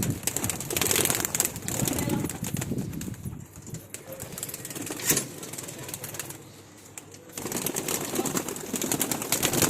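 A flock of domestic pigeons flapping their wings and cooing, with one sharp knock about five seconds in.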